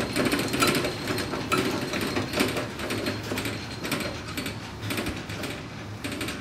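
Hand-cranked mobile archive shelving being opened: the handwheel is turned and the drive gears and rolling stacks give a dense, continuous clicking rattle that starts suddenly.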